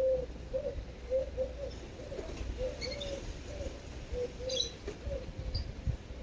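A dove cooing in short, low, arched notes, roughly two a second and irregularly spaced, that stop about five seconds in. A few brief high bird chirps come in the middle, over a low rumble.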